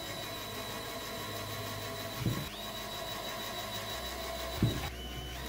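Cordless drill-driver running with a steady high whine as it drives a screw into MDF board. Two sharp knocks, about two seconds in and near the end, and the motor's pitch dips briefly after each.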